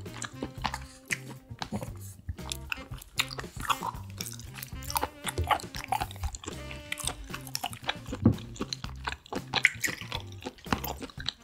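Close-miked eating sounds: wet chewing and biting of seafood with frequent sharp clicks and smacks, over background music with a steady bass line.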